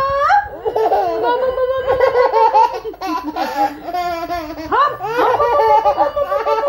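Baby laughing hard: a long run of quick, high-pitched laughs, opening with the tail of a rising squeal.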